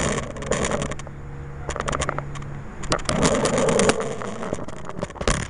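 Rope being paid out by hand as a birdhouse is lowered on it, rubbing and scraping with irregular clicks and knocks, and a sharp knock near the end.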